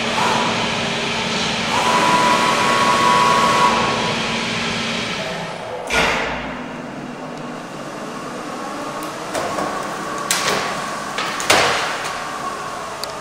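Zünd G3 digital flatbed cutter running with a steady mechanical rush and hum, and a high steady whine in the first few seconds. A sharp knock comes about six seconds in, and a few more knocks near the end.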